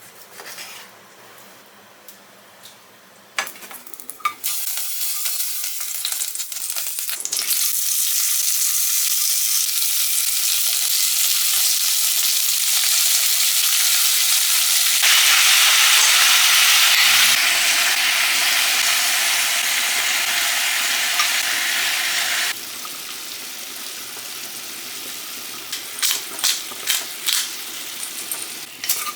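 Food sizzling as it fries in a hot pan, a steady hiss that starts a few seconds in and grows louder, then drops to a quieter sizzle. A few sharp clicks come near the end.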